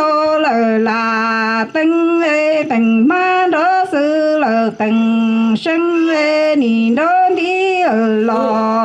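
Hmong kwv txhiaj (sung poetry): a single voice singing unaccompanied in long held notes, stepping between a lower and a higher pitch with short gliding turns and a few brief breaks for breath.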